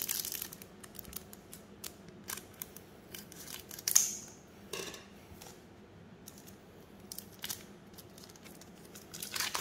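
A foil trading-card pack being opened by hand: scattered soft clicks and crinkles of the wrapper, with one sharp snip or snap about four seconds in.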